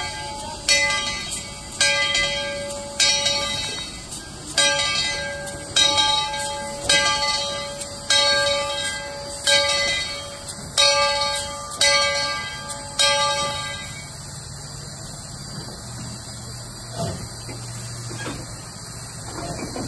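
Steam locomotive's bell ringing, a strike a little more than once a second, stopping about fourteen seconds in. A quieter steady low hum follows.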